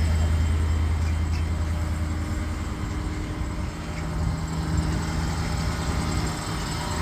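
Ford 6.7-litre Power Stroke V8 turbodiesel in a 2016 F-550 bucket truck idling, a steady low drone, with the PTO engaged.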